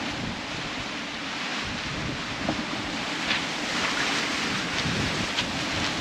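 Steady rush of wind and open-ocean waves around a sailing catamaran under way, with wind buffeting the microphone.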